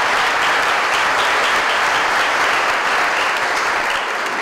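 A large seated audience applauding steadily after a speech, many hands clapping at once.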